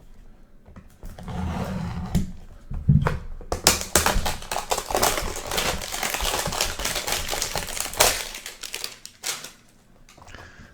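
Crinkly cellophane wrapping on a trading-card hanger box being torn open and crumpled, a dense crackling for several seconds in the middle that dies down near the end.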